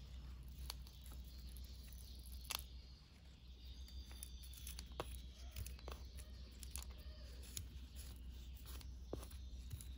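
Faint, scattered small clicks and taps from lentils and a wooden spoon being handled over the soil of a potted plant, over a low steady hum, with faint high chirps in the background.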